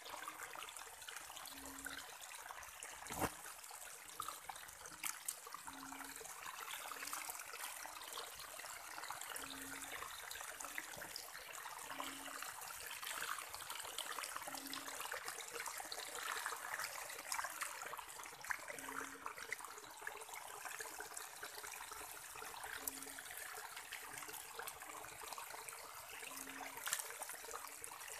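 Shallow rainwater runoff running steadily through grass, with one sharp tap about three seconds in.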